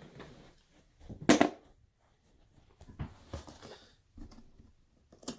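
Cardboard product box being handled and opened: a few knocks and thumps against the carton, the loudest about a second in, with rustling between them.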